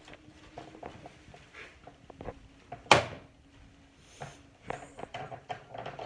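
Upright vacuum cleaner, switched off, being handled: scattered light knocks, with one loud sharp clack about three seconds in.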